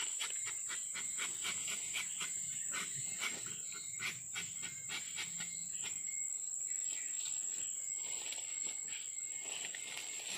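Insects, crickets or cicadas, giving a steady high-pitched drone, with a scatter of short clicks and rustles throughout.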